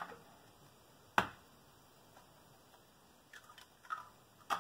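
Eggs being cracked open by hand: one sharp shell crack about a second in, then a few light shell clicks and another sharp crack near the end.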